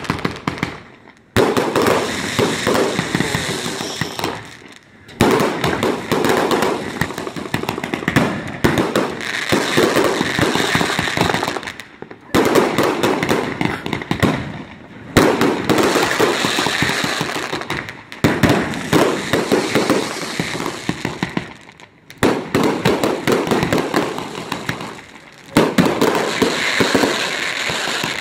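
Evil Genius and Ball Buster consumer firework cakes firing their finale: rapid shots launching and bursting with dense crackling and popping. They come in volleys of a few seconds, with short lulls between.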